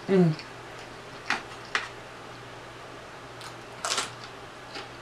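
Mouth sounds of a person eating with the fingers: a brief hummed "mm" at the start, then a few separate wet smacks and clicks of the lips and fingers.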